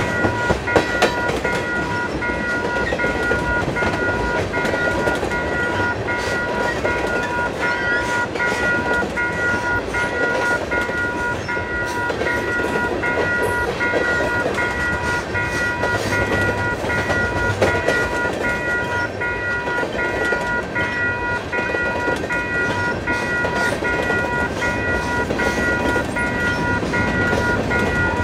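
Several electronic railroad crossing bells (WCH Type 4, General Signals Type 2.5 and NEG) ringing together at different pitches, with rapid repeating dings, over the steady rumble of a long freight train of tank cars and covered hoppers rolling past, its wheels clacking over the rail joints.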